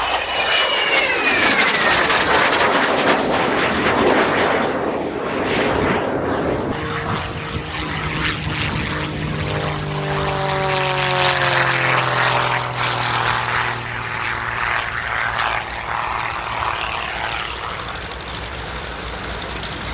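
A small jet aircraft flying past, its high whine falling in pitch as it goes by. After an abrupt change, a single-engine propeller aerobatic plane makes a low pass, its engine note dropping in pitch as it passes.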